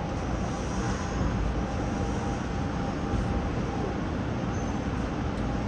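Steady running noise of a Nagoya subway 5050-series train heard from inside the front car: an even rumble that stays level throughout.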